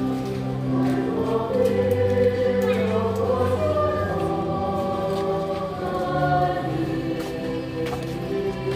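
A choir singing religious music, with notes held and changing step by step.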